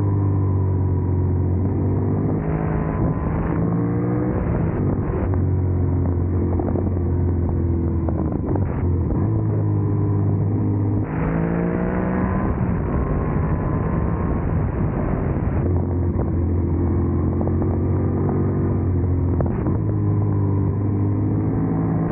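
Yamaha MT-07's 689 cc parallel-twin engine running under way, its pitch rising and falling again and again as it revs up and eases off.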